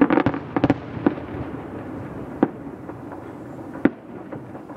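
Distant fireworks bursting: a quick cluster of sharp bangs in the first second, then single bangs about two and a half and four seconds in.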